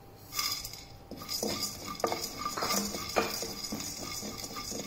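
Spatula stirring whole cumin, fennel seeds and black peppercorns as they dry-roast in an empty kadai, scraping and clinking against the metal in a series of irregular strokes.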